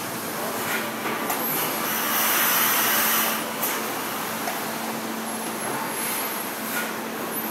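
Factory floor machinery noise: a steady hum under a dense hiss, with a louder rush of hiss about two seconds in lasting about a second, and a few scattered knocks.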